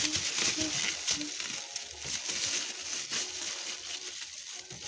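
Irregular rustling and crinkling of plastic wrapping as vegetables are handled and wrapped for storage.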